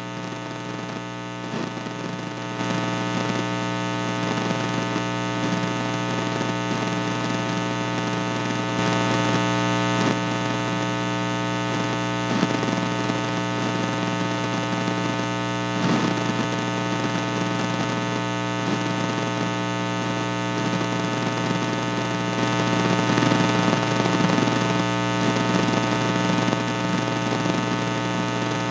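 Steady electrical mains hum, a buzz with many overtones, getting a little louder about two and a half seconds in.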